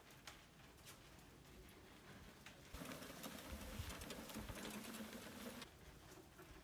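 Lawnmower engine running faintly with a steady low hum for about three seconds in the middle. Before and after it there is only quiet outdoor ambience with light scattered clicks.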